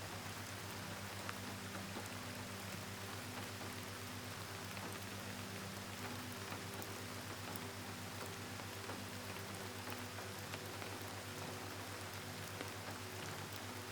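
Rain falling softly and steadily, with scattered faint drop ticks and a faint steady low hum underneath.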